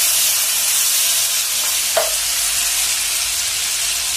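Chopped tomatoes sizzling steadily in hot melted butter in a frying pan while being stirred with a wooden spatula, with a single short knock about two seconds in.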